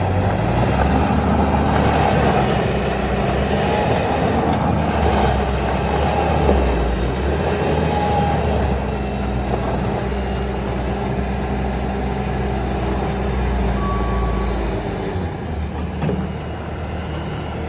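Bobcat S570 skid steer loader's diesel engine running steadily. Its note shifts about halfway through, and it drops a little in level near the end.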